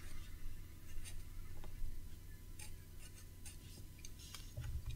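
Faint, scattered light clicks and rustles of handling noise over a steady low hum.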